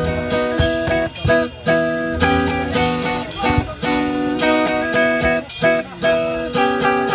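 Live rock band playing, electric guitar chords ringing out over bass and drums.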